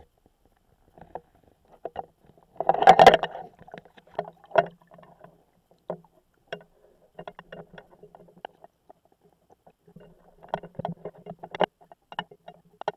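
Irregular clicks, knocks and rubbing from a camera in an underwater housing hanging on a tape measure as it is lowered, with one louder scraping burst about three seconds in.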